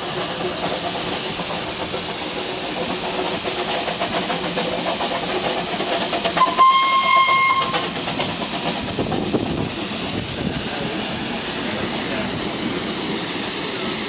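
Steam locomotive hissing steam steadily at rest, with a short steam whistle blast of about a second around the middle.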